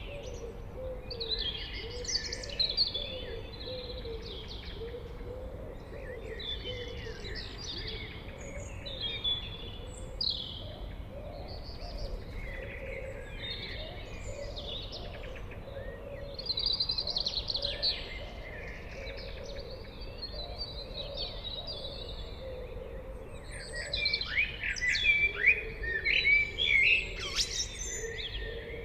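Blackbird singing a series of warbling song phrases broken by short pauses, with the loudest phrases near the end.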